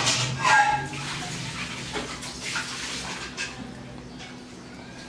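Faint clicks and rustles of a Kinder Joy's plastic cup and spoon being handled as the chocolate cream is scooped, over a steady soft hiss. The handling sounds die away after about three seconds.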